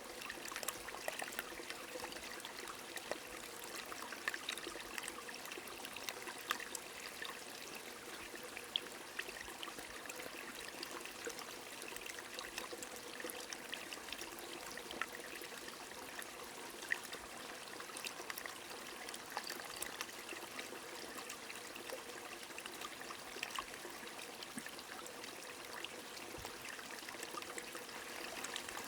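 A small stream running and trickling steadily, with rain falling: many light drop ticks scattered over the even rush of water.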